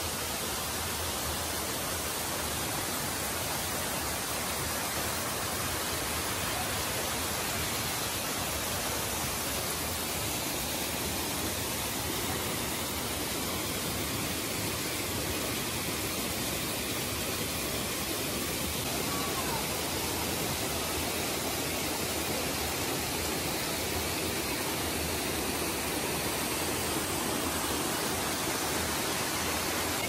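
Steady rush of water cascading over rocks in a waterfall stream, an even hiss that does not let up.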